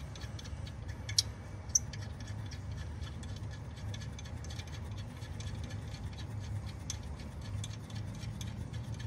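Faint metallic ticks and clicks of a nut being threaded by hand onto a steel stud, with two sharper clicks about a second in, over a steady low hum.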